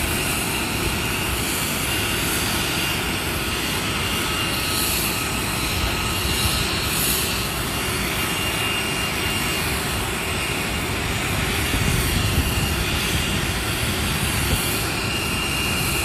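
Jet aircraft engines running on the airport apron: a steady, unbroken noise with a thin, high, steady whine above it.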